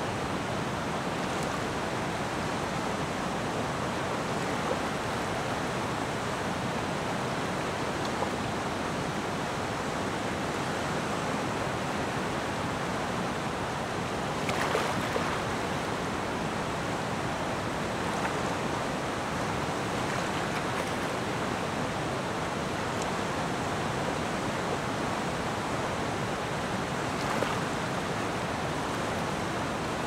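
River water flowing with a steady, even rushing. It swells briefly about halfway through and again near the end.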